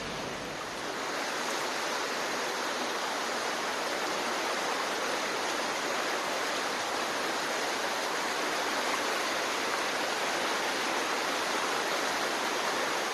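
Floodwater rushing fast along a town street, a steady rush of moving water that grows a little louder about a second in.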